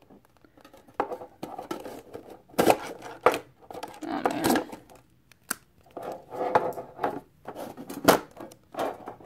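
A clear plastic card tray being lifted out of a metal tin box: irregular plastic crackling and rustling with several sharp clicks and knocks against the tin.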